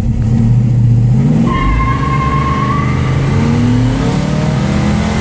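Dodge Dart's 340 V8 revving hard in a burnout on water-soaked tyres, heard from inside the car, its pitch climbing. A high squeal from the spinning rear tyres joins about a second and a half in.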